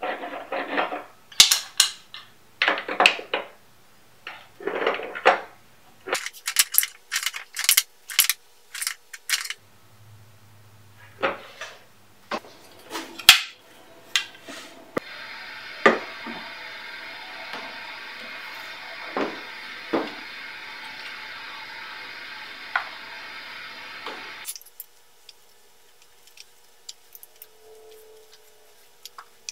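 Metal clinks, clicks and clatter of an adjustable wrench and brass pipe fittings being worked on plastic water-filter housings, with dense runs of sharp clicks at times. For about ten seconds in the second half a steady hiss sits underneath.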